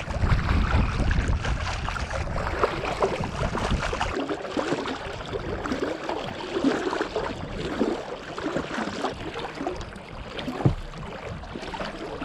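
Water splashing and gurgling against the bow of a kayak under paddle, with wind rumbling on the microphone for the first four seconds. One sharp knock comes about ten and a half seconds in.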